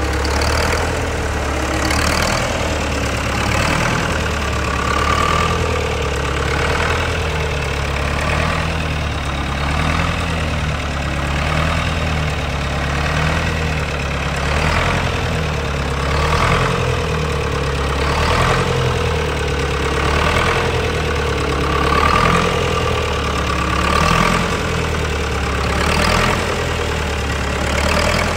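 Nuffield tractor's four-cylinder diesel engine idling steadily, its loudness rising and falling gently about every two seconds.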